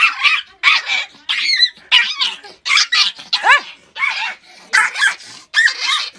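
Small puppy yapping over and over, short high-pitched yelps about two a second, several sliding down in pitch.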